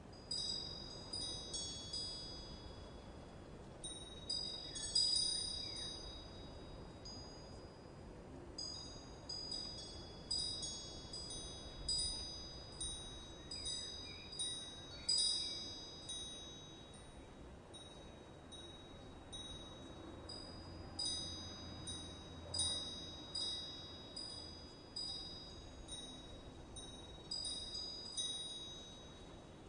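Wind chimes ringing in irregular clusters of high tones, each strike fading out, over a faint steady hiss.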